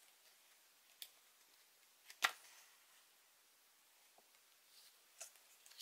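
A few faint, short clicks and ticks from fingers handling a small stiff paper leaflet, with the sharpest click a little after two seconds in.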